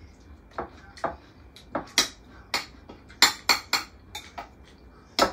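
Metal cutlery clicking and scraping against dinner plates as people eat, a dozen or so irregular sharp clinks, busiest a little past the middle.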